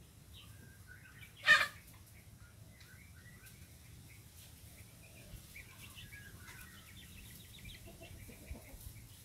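Village chickens (ayam kampung) clucking as they forage, with one loud, short squawk about a second and a half in and a scatter of faint, high, short chirps after it.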